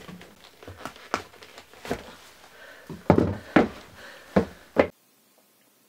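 Boots knocking on bare wooden floorboards as they are pulled on and laced, with cloth rustling between the knocks. The loudest knocks come in a quick cluster in the second half, and the sound stops abruptly about five seconds in.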